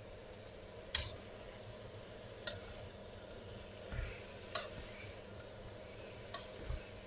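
Wooden spatula stirring sliced mushrooms in a frying pan, clicking sharply against the pan four times, the first about a second in the loudest, with a couple of dull knocks. Under it is a low, steady sizzle of the mushrooms frying.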